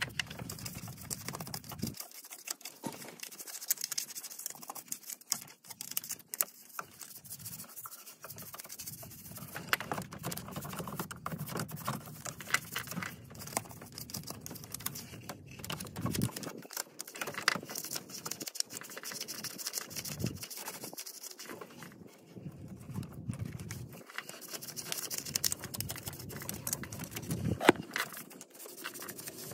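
A small brush scrubbing metal engine parts: a fast, irregular scratching patter of bristles that goes on with short pauses.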